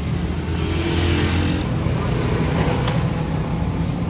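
A motor vehicle engine running steadily, with a low hum and street noise around it.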